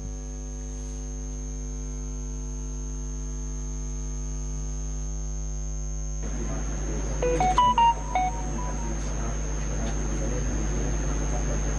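Steady electrical buzz-hum with a stack of overtones, which cuts off about six seconds in. A hiss follows, with a few short high tones about seven to eight seconds in.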